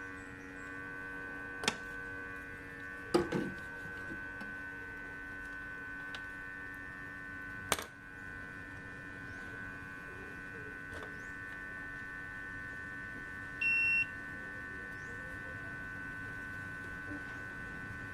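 Steady electrical hum with several held tones, broken by a few sharp clicks and one short electronic beep about fourteen seconds in.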